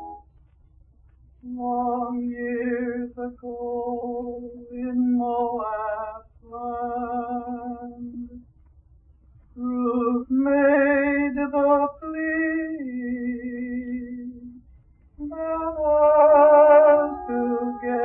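A male vocalist singing a wedding solo, a setting of words from the Book of Ruth, in a 1954 recording, with held accompaniment tones beneath. The song comes in sung phrases with a wide vibrato, broken by short pauses about a second in, about halfway through and near the end.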